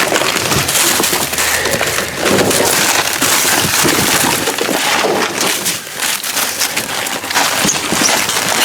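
Rummaging through trash in a dumpster: a dense run of crackling, crinkling and knocking as boxes, bags and frozen packages are shifted and handled.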